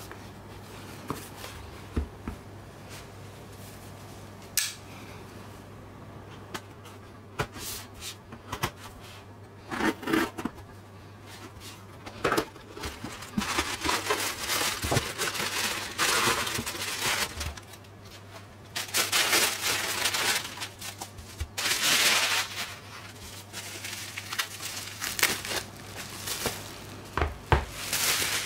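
A cardboard shipping box handled and opened by hand: scattered taps and knocks, then a long stretch of rustling and crinkling as crumpled packing material is pulled out, and a few more knocks as the contents are set down.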